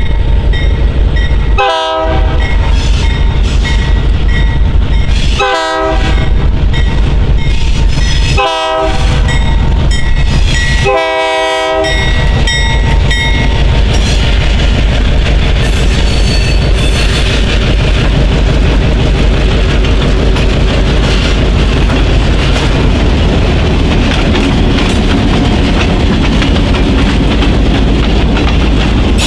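Diesel locomotive horn sounding four blasts in the first half, the last one longest, the pattern of a grade-crossing warning. Under it and afterwards comes the steady rumble of the passing freight train, with wheels clacking over the rail joints.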